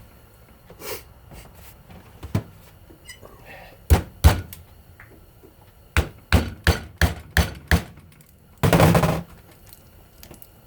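Hand tools knocking and clicking against a ceiling fan motor while it is taken apart for its copper windings: two loud knocks about four seconds in, a quick run of about seven lighter knocks a couple of seconds later, then a short rasping noise lasting about half a second near the end.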